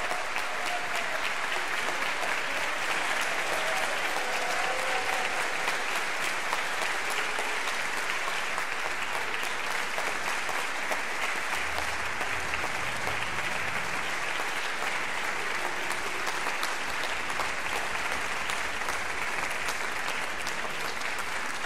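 Audience applauding steadily, a long unbroken ovation of many hands clapping.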